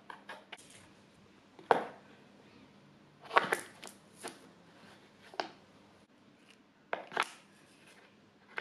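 A cat batting and pouncing at a play stick inside a box: irregular sharp knocks and short scratchy scrapes of paws, claws and stick against the box, about half a dozen strikes with the loudest a couple of seconds in and around three and a half seconds in.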